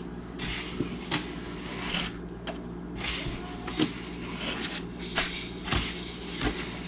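Powdered milk replacer being scooped from its container and tipped into a feeding bottle, scoop after scoop: the scoop scrapes through the powder and knocks several times, over a steady low hum.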